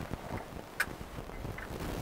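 Low, uneven rumbling noise from a faulty microphone, with one sharp click a little under a second in.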